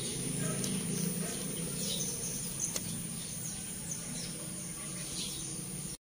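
Steady ambient background noise with a low hum and a few faint, short, high chirps scattered through it. It cuts off abruptly at the end.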